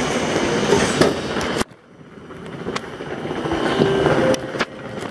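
Train and platform noise that cuts off suddenly about a second and a half in, then quieter sounds with a few sharp clicks and a short whir as the Pendolino ED250's sliding passenger door opens.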